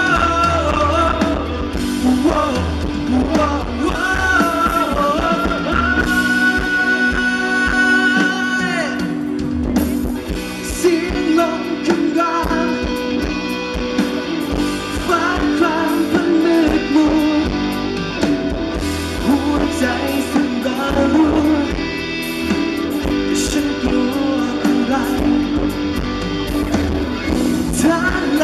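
Live rock band playing: a male singer sings through a microphone over electric guitar, bass and drums, holding one long note a few seconds in.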